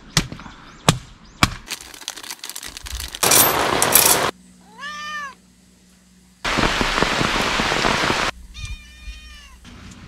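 A stray cat meowing twice, once about halfway through and again near the end, between loud stretches of heavy rain hiss. A few sharp knocks come in the first two seconds.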